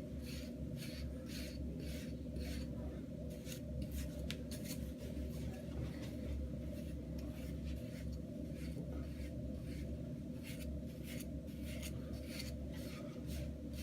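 Hard-bristle wave brush stroking over short hair, a quick scratchy stroke repeated about two to three times a second, over a steady low hum.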